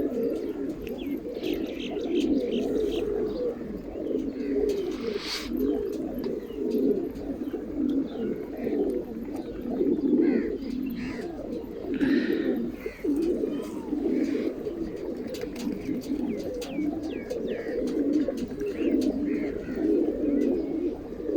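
A flock of pigeons cooing continuously, many overlapping voices, with small birds chirping here and there above them.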